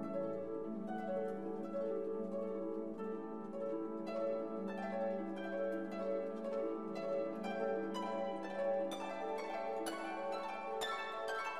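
Instrumental background music of plucked, harp-like string notes over a held low note, the plucking growing busier near the end.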